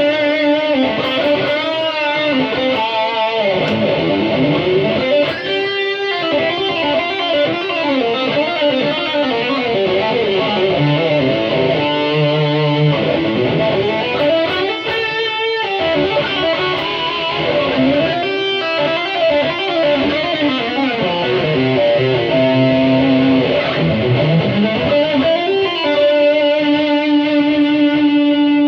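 Electric guitar on the bridge pickup played through a distortion patch with boost on a Boss GT-100 multi-effects unit: chords and single-note runs, ending on a held chord.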